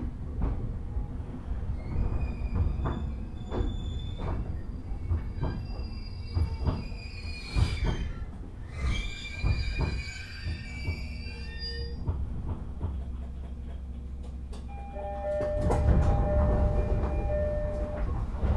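Running sound inside a JR 205-600 series electric train slowing for a station stop: wheels clicking over rail joints under a steady rumble, with high wheel and brake squeal through the first half. From about fifteen seconds in, a louder rumble with a steady hum.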